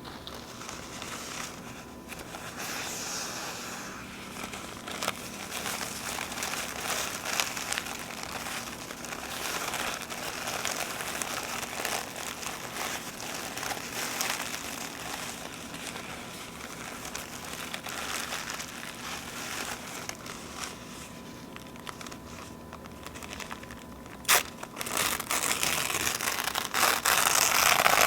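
Paper napkins being crinkled and torn by hand: a continuous soft rustling and crinkling. A sharp snap comes near the end, followed by several seconds of louder tearing.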